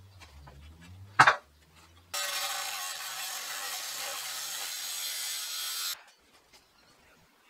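A loud sharp knock about a second in, then an angle grinder grinding into the edge of thick rusty steel for about four seconds, starting and stopping abruptly.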